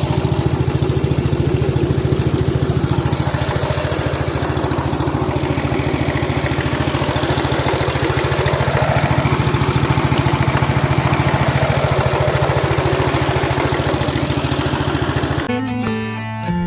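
Small fishing boat's engine running steadily at an even speed. Guitar music takes over near the end.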